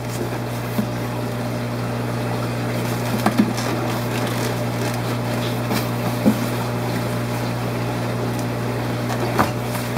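Steady hum and hiss of fish-room equipment, with a handful of light knocks and clicks scattered through it.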